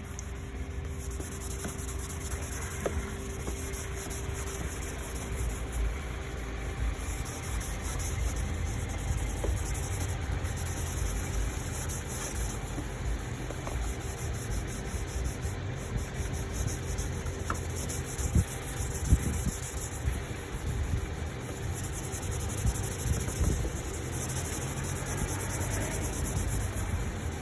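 Sandpaper being scrubbed back and forth by hand over a wet, oxidised plastic headlight lens, a steady fast rubbing: wet-sanding to cut away the haze. A low rumble runs underneath, and a few knocks come about two-thirds of the way through.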